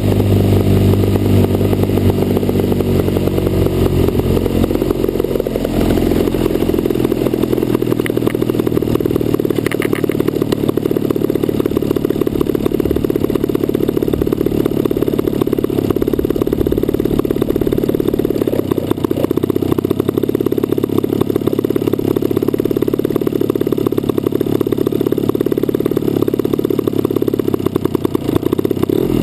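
Single-cylinder DLE 55cc two-stroke gasoline engine of an RC model airplane. It runs at lower throttle, is opened up about five seconds in with a rising pitch, and then runs steadily at high power.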